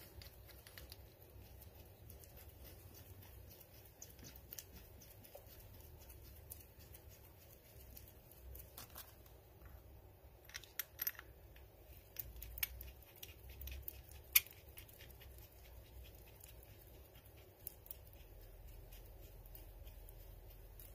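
Faint scattered clicks and light metallic scraping from hands fitting and hand-threading the bolts into a Kawasaki ZZR1200 brake caliper, with one sharper click about two-thirds of the way through.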